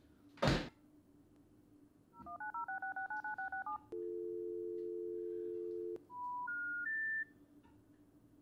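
A short, loud whoosh, then a phone keypad dialing a number in about eleven quick two-tone beeps, then a steady two-second two-tone ring. It ends on three rising notes, the special information tone that signals the call cannot be connected.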